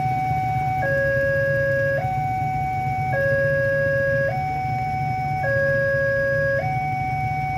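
Railway level-crossing warning alarm sounding, the signal that a train is approaching. It is an electronic two-tone signal alternating steadily between a higher and a lower tone, each held a little over a second. A low steady rumble runs underneath.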